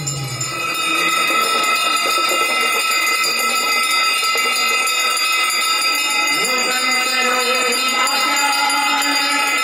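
Brass hand bells rung continuously in Ganga aarti worship, a dense steady ringing, with devotional music and a singing voice over it.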